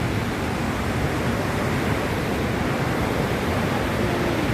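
The Bow River pouring over Bow Falls: a steady, dense rush of falling water.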